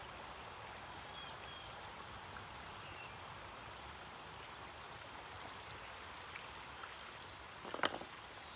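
Water trickling and running steadily in a backyard garden pond, with a few faint high chirps about a second in and a brief clatter near the end.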